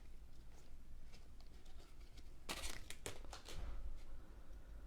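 Faint rustling of a basketball card pack's wrapper and cards being handled, with a few short crinkles about halfway through.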